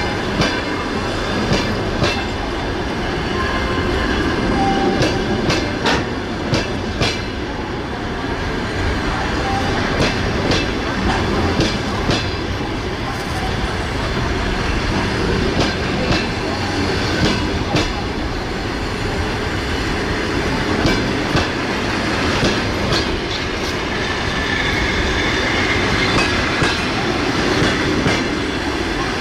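Long-distance passenger coaches rolling past as the train pulls out, a steady rumble with repeated clicks of the wheels passing over rail joints.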